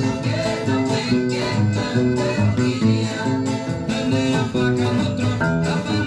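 1993 Do Souto imbuia-wood nylon-string classical guitar (violão) played fingerstyle: a quick, even run of plucked melody notes over a bass line.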